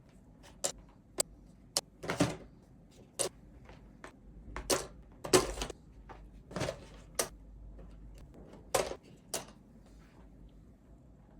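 Plastic keycaps being pulled off a mechanical keyboard's switches one after another: about a dozen sharp, uneven plastic clicks and clacks.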